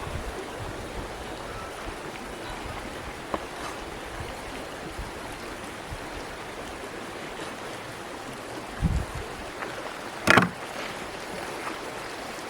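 Steady rushing of running water, with a low thump about nine seconds in and a sharp, louder knock a second later.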